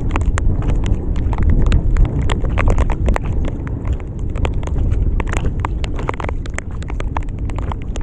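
Wind buffeting the microphone with a low rumble, over a steady scatter of sharp light taps, several a second, from raindrops striking the kayak and gear.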